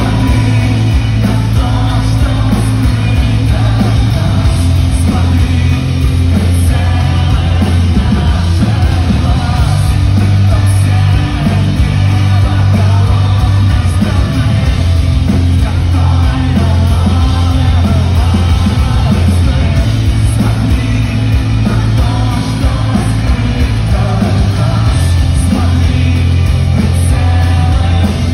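Loud live rock music: a full band with drums and heavy bass, and a male singer singing into a handheld microphone, heard from within the audience.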